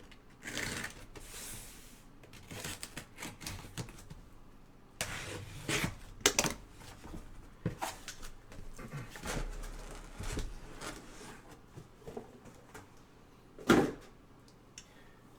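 Trading cards and their packaging being handled on a table: intermittent rustling and sliding with light clicks, and one sharper knock about 14 seconds in.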